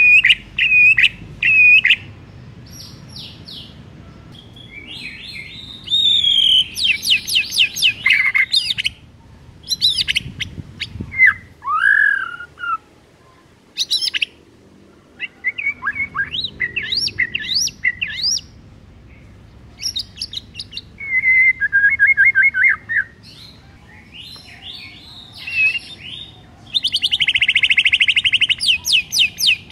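White-rumped shama singing a varied song in separate bursts of whistled notes, quick rising sweeps and chattering phrases, with short pauses between them. It opens with a run of repeated notes and ends with a rapid buzzy trill.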